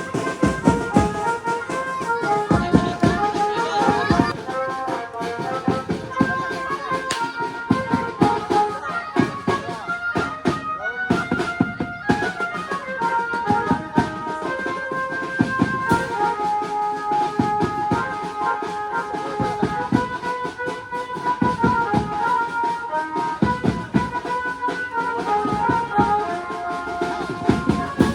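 Garba dance music: a steady, driving drum beat under a bright stepping melody.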